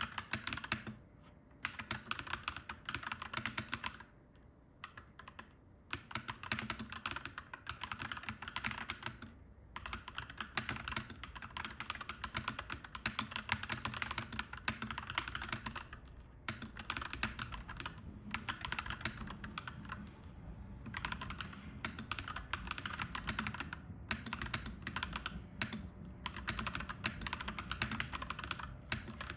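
Clacky mechanical keyboard being typed on quickly and continuously, with a few short pauses between bursts of keystrokes.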